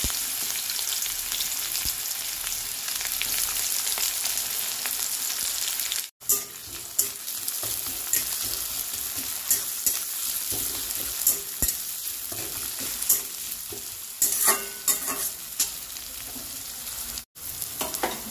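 Chopped onion sizzling in hot oil with nigella seeds in an aluminium kadai, with a metal spatula scraping and clicking against the pan now and then in the second half. The sizzle drops out for an instant twice.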